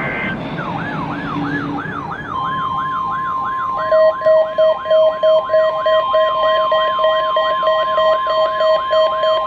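NOAA Weather Radio warning alarm going off for the routine weekly test, sounded through several weather alert radios at once. A siren-like alarm sweeps down in pitch about three times a second. About two seconds in, the steady 1050 Hz NOAA warning alarm tone joins it, and about four seconds in a lower beeping alarm starts at about two beeps a second.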